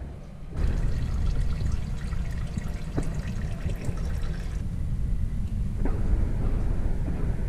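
Engine coolant draining from a truck's radiator in a thin stream, splashing into a plastic drain pan already full of coolant. The splashing is strongest for the first few seconds, over a steady low rumble.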